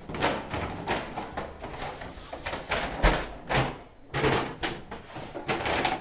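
Brown paper grocery bag rustling and crinkling in irregular crackles as it is carried and lifted, with a few dull bumps.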